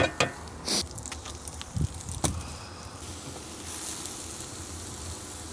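Sliced onions sizzling steadily in oil in a wide pan, stirred with a wooden spoon, with a few sharp knocks in the first couple of seconds.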